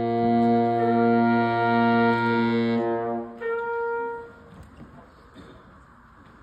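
Trumpet, baritone saxophone and trombone trio holding one long chord, then a shorter second chord about three and a half seconds in; the playing stops about a second later, leaving faint room noise.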